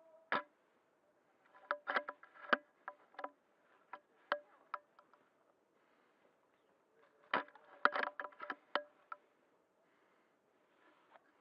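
Irregular sharp clicks and knocks, one about half a second in, a quick run of them from about 1.5 to 3.5 s, and another run from about 7 to 9 s.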